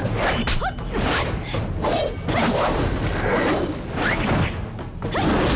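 Martial-arts fight sound effects: a rapid series of whooshes from swung robes, sleeves and limbs, mixed with sharp hits.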